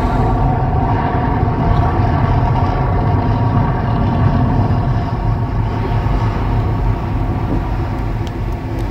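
The volcano show's deep, steady rumble with faint sustained tones above it, easing off over the last few seconds as the fire effects die out.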